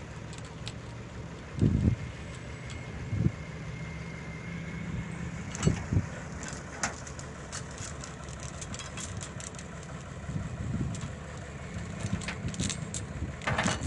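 Engine idling steadily, with a few short knocks and clicks over it.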